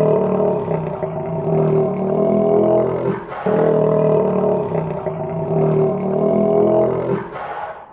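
An alligator's deep, droning bellow: two long calls with a short break about three seconds in, fading out near the end.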